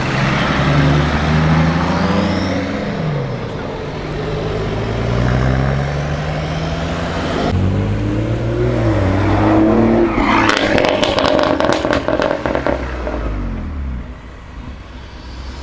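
BMW M car exhausts revving as the cars drive past, the engine pitch climbing and falling. After a sudden change about halfway through, another car revs, with a fast run of exhaust crackles, before the sound drops off near the end.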